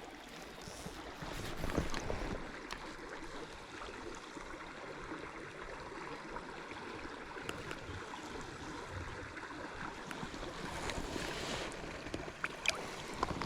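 Small river running steadily: an even rush of the current over the riverbed, with a few thin clicks here and there.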